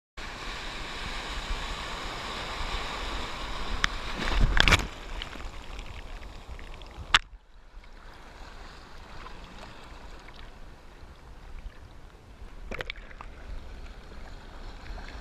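Ocean water sloshing and splashing right at the microphone of a camera held at the water's surface, with a loud splash about four to five seconds in. Two sharp clicks come about seven and thirteen seconds in.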